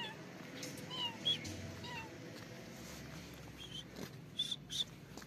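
Cat meowing: about three short meows, each falling in pitch, in the first two seconds, followed by three brief high chirps later on.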